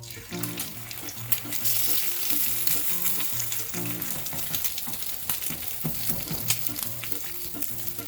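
Food frying in a hot pan: a steady sizzle with many small crackles and pops.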